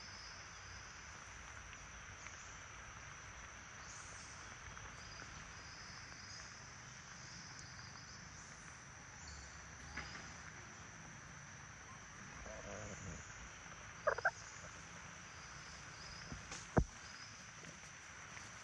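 A steady, high-pitched chorus of calling insects and frogs, pulsing in patches, with a few sharp clicks; the loudest click comes near the end.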